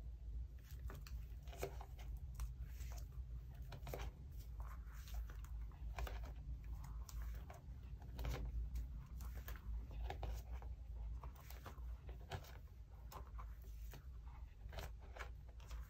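Plastic pocket sleeves in a ring binder rustling and crinkling in irregular little crackles and clicks as the pages are handled and turned, over a steady low hum.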